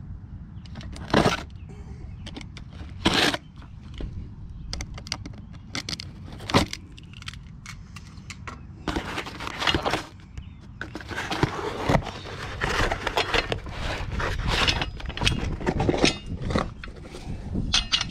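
A box cutter slicing through filament packing tape and a cardboard box, with crackling, tearing and scraping of the cardboard as the box is opened and a few sharper knocks, the first two about one and three seconds in.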